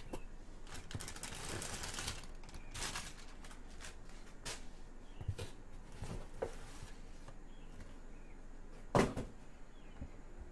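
Cardboard shipping box and plastic packing film rustling and crinkling as a boxed figure is handled and pulled out, with scattered light knocks and one louder knock about nine seconds in.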